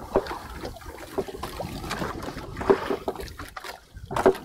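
Knife cutting bait on a wooden cutting board, making irregular light knocks, over water sloshing against the boat.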